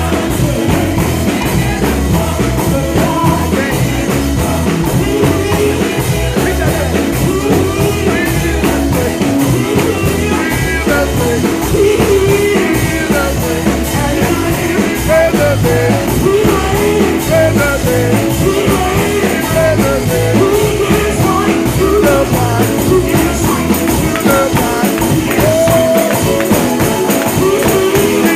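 Live gospel music: a male lead singer over a band with a steady, driving beat.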